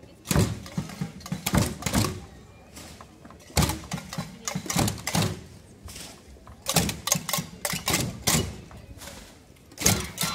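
Irregular knocks and clacks, coming in quick bursts of several a second with short quieter gaps between them.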